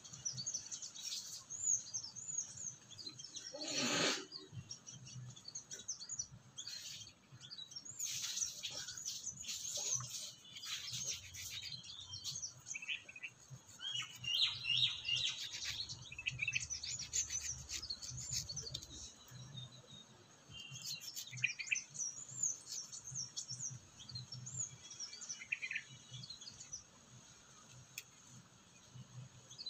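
Small birds chirping and twittering repeatedly, with one short burst of noise about four seconds in.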